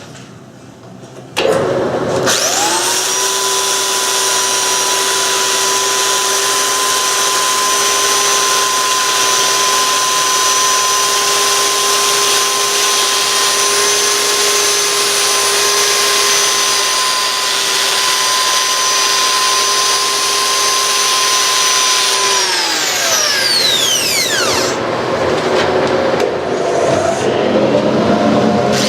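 Power-sanding a wood-lathe spindle with an 80-grit sanding pad on a drill while the dust collection runs. A motor winds up to speed about two seconds in, runs steadily, then winds down over a couple of seconds. The broad machine noise carries on after it, and a motor starts up again at the very end.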